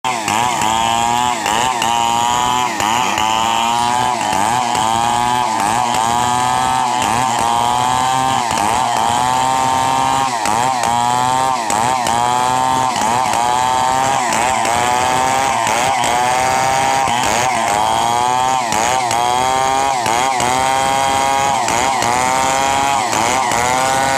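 Stihl MS 070 two-stroke chainsaw running at high revs while cutting coconut wood, its pitch dipping and recovering about once a second as the chain bogs and frees.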